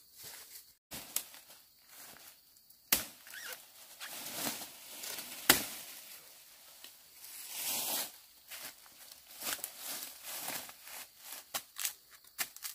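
Irregular rustling and crackling with scattered sharp snaps, the loudest about five and a half seconds in.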